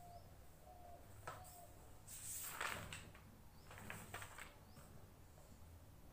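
A book page being turned, a papery rustle about two seconds in, with a few soft clicks of paper handling about a second later. Small birds chirp faintly in the background.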